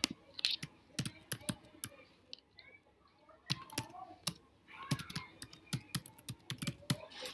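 Typing on a computer keyboard: irregular keystrokes spread over several seconds, with a sharper click right at the start.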